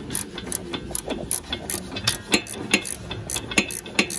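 Ratchet spanner clicking as it is swung back and forth to undo a front anti-roll bar drop link nut: a run of sharp clicks, about two or three a second.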